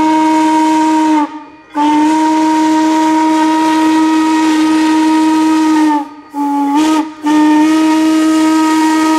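Jeddo Coal 85 steam locomotive's Powell hooter whistle blowing the grade-crossing signal: a long blast ending about a second in, another long blast, a short one, then a long one held on. A single low hooting tone over a steady steam hiss.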